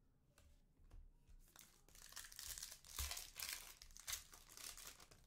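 A 2020 Panini Select UEFA Euro trading-card pack wrapper being torn open by hand, crinkling and ripping. A few light ticks come first, then the crackling builds from about a second and a half in, with its loudest rips about three and four seconds in.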